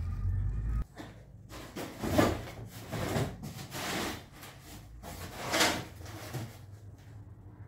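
Objects being shifted and scraped across a shop floor by hand: a few separate rubbing and scraping strokes, the loudest about two seconds in and again near five and a half seconds. A low outdoor rumble cuts off just under a second in.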